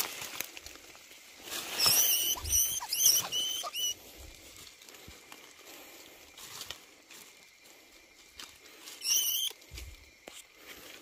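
A mouse caught in a wire spring trap squeaking in distress. There is a quick run of about five short, high squeaks about two seconds in, a few more near the end, and rustling as it struggles in the trap.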